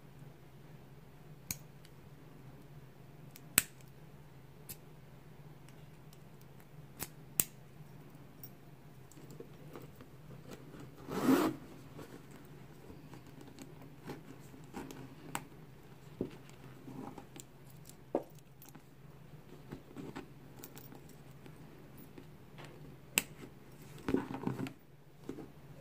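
Sparse sharp metallic clicks and clinks as a small brass padlock and its keys are handled, with soft rubbing and rustling of the coated-canvas handbag as it is turned. A louder rub comes near the middle, and a cluster of rustles and clicks near the end as the padlock is hung on the zipper pulls. A faint steady hum lies underneath.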